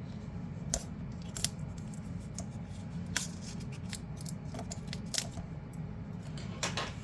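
Small sharp clicks and taps, about half a dozen at irregular intervals, from hands handling a product box and its packaging, over a steady low hum.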